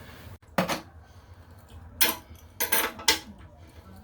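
Sharp metallic clinks of a wrench on the toilet tank's bolts and nuts, four separate knocks spread across a few seconds, as the tank-to-bowl bolts are tightened to compress the new gasket.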